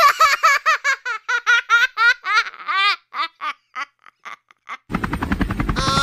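High-pitched laughter: a quick run of 'ha-ha' syllables, about six a second, that slows and trails off about four seconds in. Near the end a loud rushing noise with a tune over it starts abruptly.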